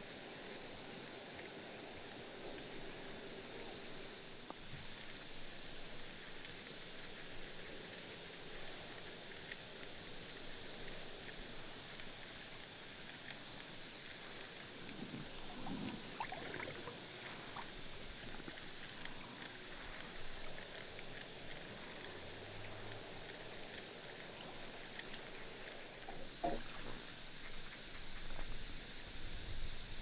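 Insects chirring outdoors: a fast, very high, continuous pulsing, with a short chirp repeating about every second and a half. A few soft rustles come about halfway through, and some louder knocks and clicks near the end.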